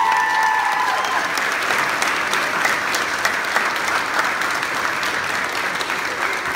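A seated crowd of guests applauding steadily, with a held whistle over the first second.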